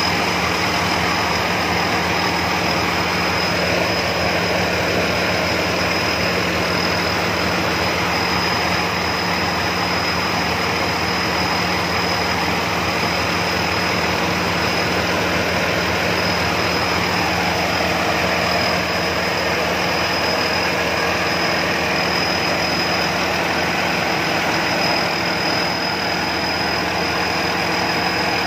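Rice combine harvester's diesel engine running steadily, with a constant high-pitched whine over it, as the machine unloads threshed rice into a truck.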